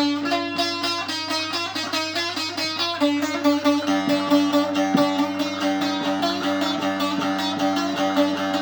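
Instrumental music: a plucked string instrument playing a fast run of repeated notes over a steady held drone.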